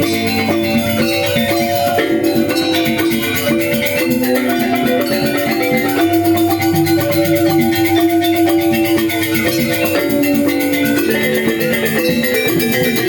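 Balinese gamelan angklung ensemble playing a continuous piece: bronze metallophones ring out many overlapping notes in dense running patterns, with a steady low tone underneath.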